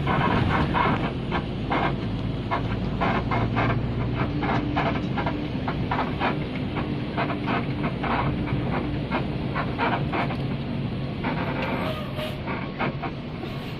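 Steady engine and road rumble heard from inside a moving intercity bus, with frequent irregular rattles and clatters from the cabin.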